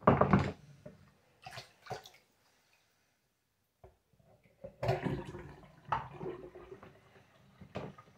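A pink plastic cup handled in a bathroom sink basin: water splashing and the cup knocking in a few short bursts, the loudest at the very start and another run about five seconds in.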